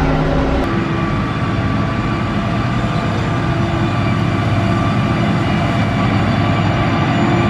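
Heavy diesel engine of road-construction machinery, most likely the motor grader, running steadily under work. Its note changes abruptly about half a second in, then holds steady.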